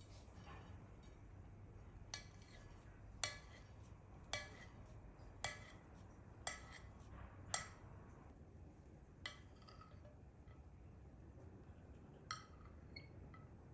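Light clinks of kitchenware being handled, about one a second, several with a short ring, then two more spaced further apart.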